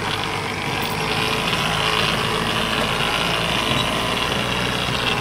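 Truck engine running at low speed, heard from inside the cab as it crawls over a rough gravel road, with a higher hiss joining about a second in.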